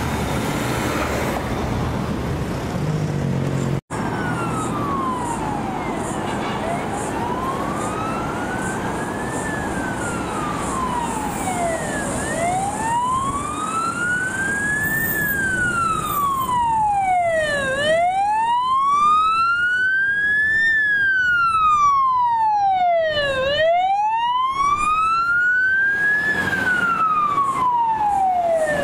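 Fire truck's siren on a slow wail, rising and falling about every six seconds, growing louder as the truck approaches, over road traffic noise. The sound cuts out for an instant about four seconds in.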